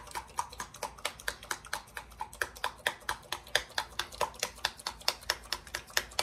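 Plastic paint bottle holding a freshly mixed cell activator being shaken hard and steadily, its contents and lid knocking in a quick, even clicking rhythm of about five a second.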